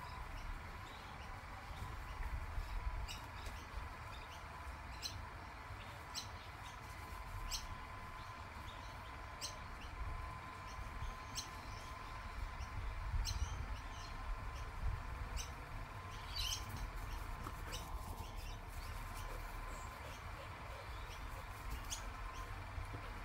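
Birds chirping in the garden: short, high calls every second or two over a thin steady hum, with wind rumbling on the microphone.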